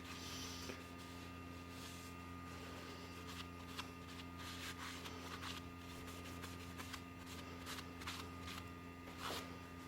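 Faint steady electrical hum, with a few light clicks and rubs scattered through it.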